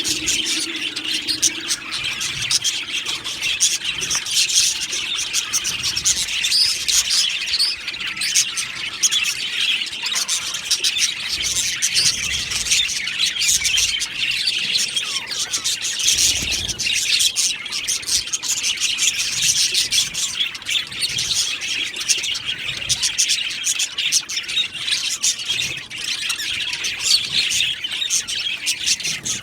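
A colony of budgerigars chirping and warbling together, many overlapping short chirps and chatter with no pauses.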